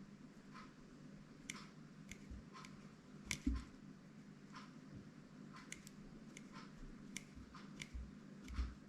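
Line cutter of small multi-function fishing pliers snipping through fishing line again and again, cutting easily: faint, short, sharp snips about one to two a second, with a few low handling thumps.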